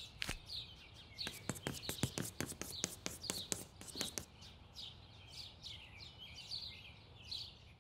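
Cartoon sound effects of small birds chirping and twittering again and again, with a rapid run of keyboard-typing clicks during roughly the first four seconds.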